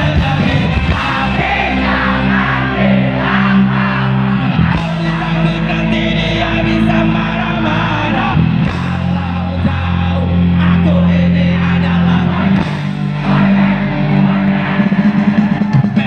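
Live band music with a singer, loud and steady, with held bass notes that change every couple of seconds.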